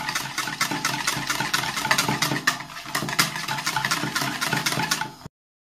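Wire whisk beating a thick yogurt, egg yolk and flour mixture in a plastic bowl: fast, even clicking and rattling of the wires against the bowl, several strokes a second. It cuts off suddenly about five seconds in.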